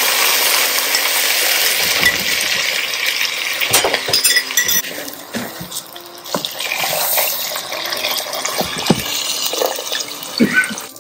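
A pot of vegetable pulao cooking: a steady sizzle-like hiss as onions, vegetables, spices and rice are stirred with a wooden spatula, with short knocks of the spatula against the pot. Near the end, water is poured in over the rice.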